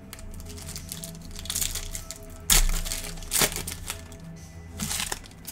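Clear plastic wrapper of a trading card pack crinkling as it is pulled open by hand, with sharp loud crackles about two and a half and three and a half seconds in and a smaller one near the end. Background music plays underneath.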